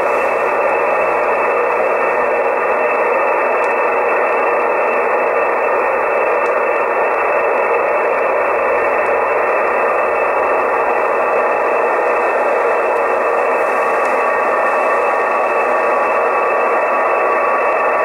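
Shortwave receiver hiss from a Soft66RTL2 software-defined radio in upper sideband on the 20-metre amateur band, tuned between stations: steady band noise heard through the narrow single-sideband filter. A faint steady carrier tone comes in about eleven seconds in.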